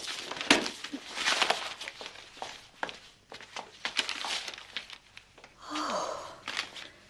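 Cardboard box being opened and rummaged through, its flaps and paper packing rustling and crackling in a quick run of scrapes. A short voice sound falls in pitch about six seconds in.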